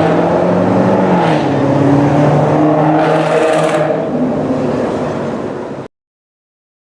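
Maserati GranTurismo's V8 running through a Fi Exhaust aftermarket exhaust: a steady low drone with small shifts in pitch. It fades a little, then cuts off abruptly near the end.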